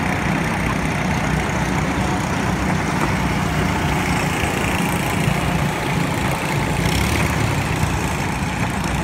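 Engines of several go-karts running as the karts lap the track: a steady, even drone with no clear revving up or down.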